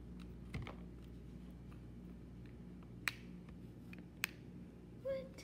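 Handling noise over a faint steady hum: a soft knock about half a second in, then two sharp clicks about a second apart, as objects on a countertop are moved and touched.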